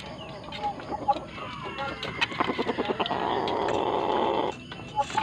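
Gamecock clucking, with a drawn-out run of rapid clucks lasting about two seconds past the middle. Scattered sharp clicks and taps sound around it.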